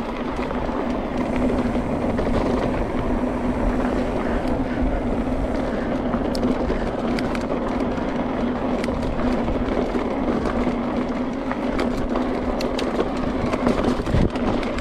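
Mountain bike rolling over a loose dirt and gravel trail: steady tyre and wind noise with scattered rattles and clicks from the bike, and a heavier thump over a bump near the end.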